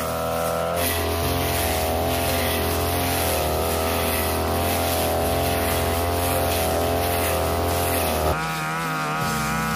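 42cc two-stroke backpack brush cutter engine running at high speed while its metal blade cuts thick, overgrown grass; the engine note wavers slightly as the blade takes the load. A little past eight seconds the note changes suddenly, with a brief bump in level.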